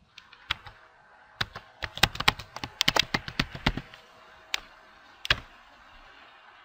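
Computer keyboard keystrokes: a quick run of typing, then two single key presses near the end.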